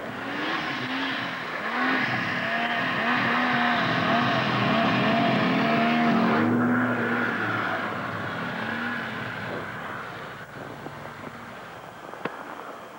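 Polaris Indy XLT 600 snowmobile's two-stroke three-cylinder engine running, its pitch wavering up and down with the throttle, then fading away after about six seconds.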